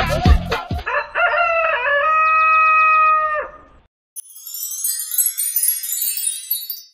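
A rooster crowing: one long cock-a-doodle-doo that rises and then holds, cutting off about three and a half seconds in. Music beats end in the first second, and a high sparkling chime shimmer comes in after the crow.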